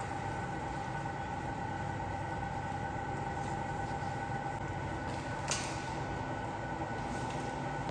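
Steady mechanical hum of building machinery in an indoor animal house, with a few steady whining tones over a low rumble; a single sharp click about five and a half seconds in.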